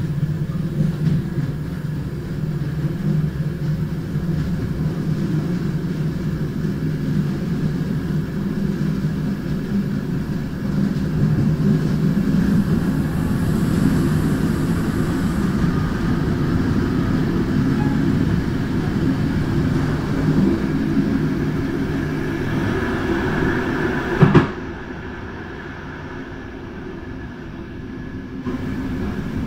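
Train running along the track: a steady noise of wheels on rails and the moving train. A sharp knock comes about 24 seconds in, after which the sound is quieter and duller for about four seconds before returning.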